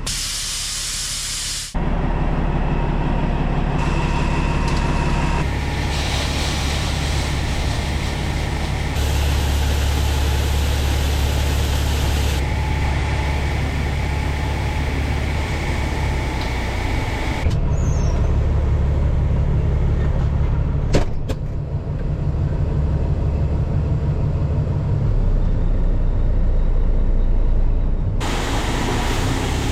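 Heavy truck running: engine hum and road noise, cut together from several clips, so the sound changes abruptly every few seconds.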